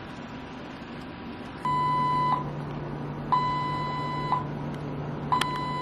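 Electronic alarm beeping: three long beeps at one steady pitch, starting a little under two seconds in and repeating about every second and a half, over a steady low hum.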